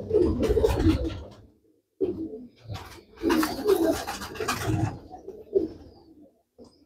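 Domestic pigeons (Teddy high-flyers) cooing in several separate bouts with short pauses between them.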